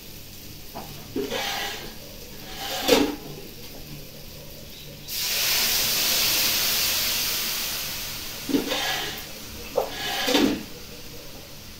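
Water poured from a metal jug into a hot kadai of taro fried in oil and spice paste. It sets off a sudden loud hiss of steam and sizzling about five seconds in, which fades away over about three seconds. A few short knocks and scrapes come before and after it.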